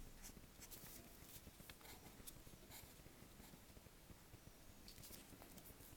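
Pen nib scratching on paper in short, faint, irregular strokes while drawing.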